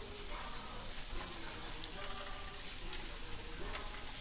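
Pork potstickers sizzling as they are set into hot oil in a frying pan, with a few light taps. A thin, high, steady whistle runs over the sizzle from about half a second in until near the end.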